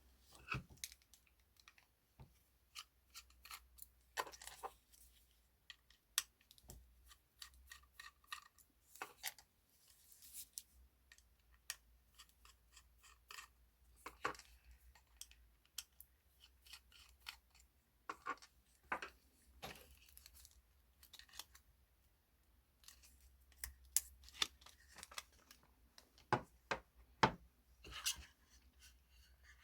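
Irregular sharp clicks, taps and short scrapes of hands working on a laptop's plastic case and small parts, with no steady rhythm.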